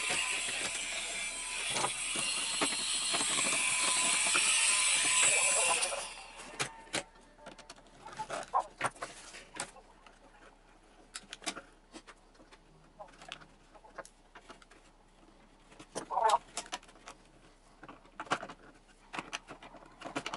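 A loud, even hiss cuts off abruptly about six seconds in. After it come scattered small clicks and taps of hands working the wire landing-gear struts and ski of a model plane on a wooden table.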